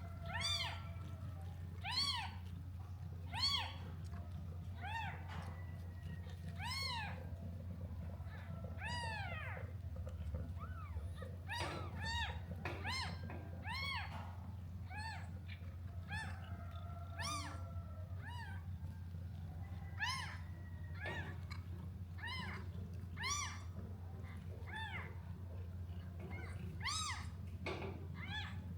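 Newborn kittens mewing: many short, high-pitched mews, each rising and falling, one or two a second and sometimes overlapping, over a steady low hum.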